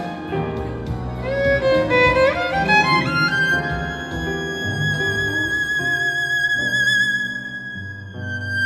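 Music: a violin melody over a lower accompaniment, climbing in a quick rising run, then holding one long note with vibrato.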